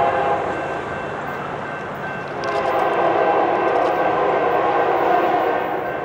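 Locomotive air horn of an approaching CSX freight train: one blast trailing off just after the start, then a longer steady blast from about two seconds in until near the end.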